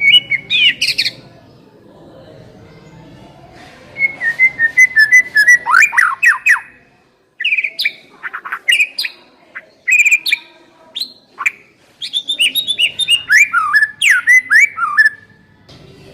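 White-rumped shama (murai batu) singing: fast runs of clear whistled notes and sharp down-slurred calls, in four bursts separated by short pauses.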